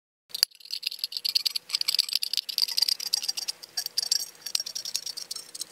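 P-38 military can opener punching and levering its way around the rim of an old steel C-ration can: a fast, uneven run of sharp metal clicks and scrapes. It starts with a loud click shortly after the beginning and keeps on as the lid is cut.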